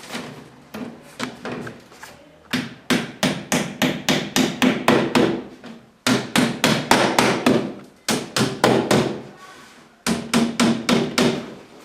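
Hammer blows on flat-pack shoe-cabinet parts being knocked into place, in four quick runs of about three to four blows a second. Lighter taps come first, and each blow rings briefly in the panels.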